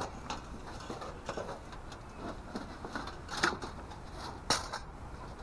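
Parts of a camp wood stove being handled and fitted together: a scatter of light knocks and clicks, with two sharper ones about three and a half and four and a half seconds in.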